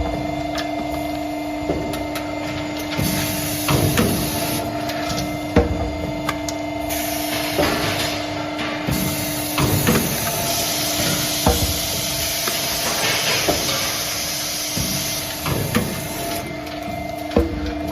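Servo-driven double-end chamfering machine running: a steady motor hum with irregular metallic clicks and clunks as pipe pieces are handled and cut, and a hiss that comes and goes.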